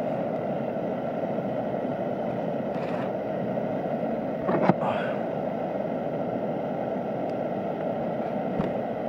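A steady low rushing noise throughout, with a brief knock about halfway through as something is handled on the table.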